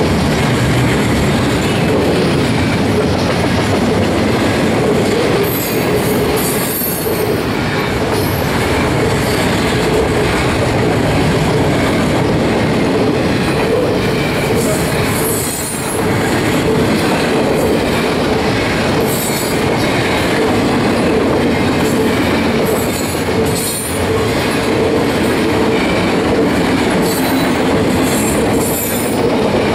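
Double-stack intermodal container train's well cars rolling past: a loud, steady rumble of steel wheels on the rails, with short high-pitched wheel squeals breaking in several times.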